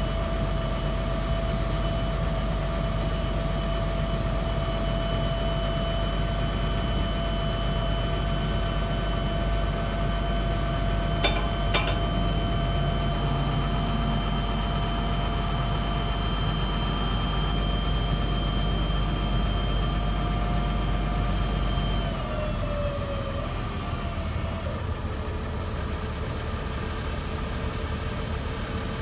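Cummins ISB diesel of a hook-hoist roll-off truck running steadily while the hydraulic hook arm moves, with a steady whine over the engine. About 22 seconds in, the engine note and the whine drop, and the whine settles at a lower pitch. Two short clicks a little before halfway.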